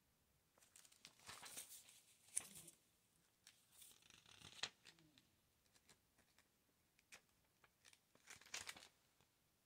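Glossy paper catalogue pages being handled and turned: faint, intermittent rustling and crinkling with small clicks, in three main bursts, about one to three seconds in, around four and a half seconds, and near the end.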